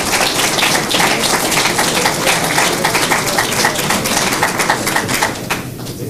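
Audience applauding, dense clapping that dies down near the end.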